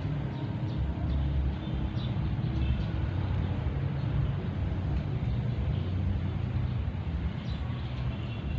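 Steady outdoor low rumble that rises and falls slightly, with faint short high chirps now and then.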